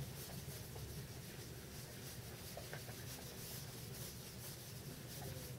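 Whiteboard eraser wiping across a whiteboard in repeated faint rubbing strokes.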